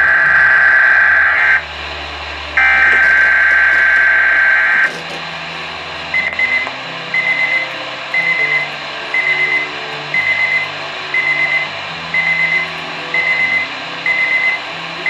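Two bursts of the weekly test's SAME digital header, a harsh buzzing data warble, end at about 1.6 and 4.9 seconds. From about six seconds in, an alert-equipped weather radio beeps a high fluttering tone about once a second, signalling that it has received the weekly test.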